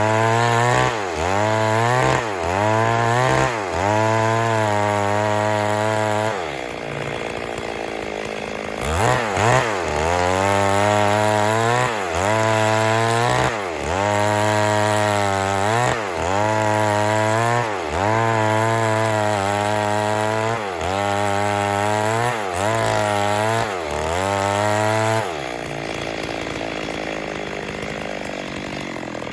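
Stihl MS 382 two-stroke chainsaw running hard, its engine pitch dipping and climbing back about once a second. Twice, for a few seconds, the note drops to a quieter, rougher sound.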